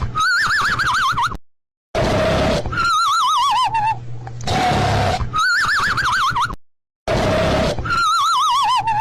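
Cartoon snoring sound effect: a rasping, rumbling snore alternating with a warbling, wavering whistle, looping about every five seconds. It cuts to dead silence twice, about a second and a half in and again near seven seconds.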